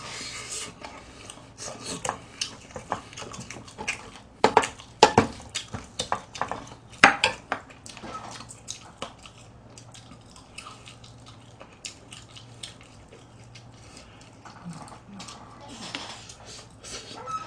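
Metal spoon and chopsticks clinking and scraping against a brass bowl and pot, with wet chewing and smacking of food. The clicks are irregular and busiest in the first half.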